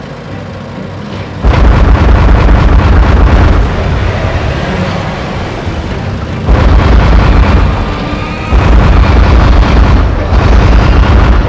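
Loud rumbling, booming cartoon sound effects that come in about a second and a half in and surge again several times, with music underneath.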